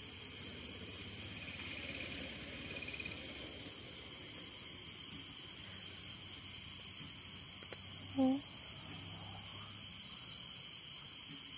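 Crickets and other night insects chirring steadily, a rapid, even high pulsing over a continuous high trill. About eight seconds in, a brief low pitched sound, a short hum or call, stands out above them.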